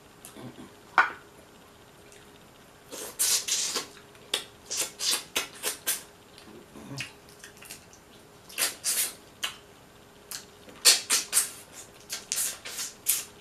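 Wet sucking and smacking mouth sounds of someone eating boiled crab with their fingers, drawing meat out of the shell. The sounds come in clusters of short sharp slurps, with a single sharp snap about a second in.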